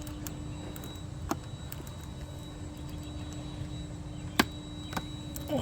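A few isolated sharp metal clicks from the universal socket and Leatherman ratchet driver being fitted onto a rusty bolt, the loudest one near the end, over a steady low outdoor hum.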